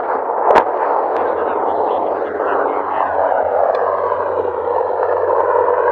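Military helicopter flying over a firing range: a steady rushing noise with a low hum beneath, broken by one sharp bang about half a second in, with a few fainter cracks later.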